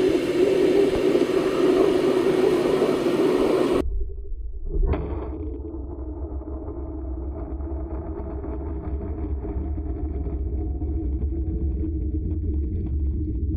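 Flow Mach 200 waterjet's high-pressure stream firing down into its water-filled tank and blasting through a submerged watermelon, a loud steady hiss. About four seconds in the sound cuts abruptly to a muffled low rumble with crackling bubbles, heard from under the water, with a single brief knock about a second later.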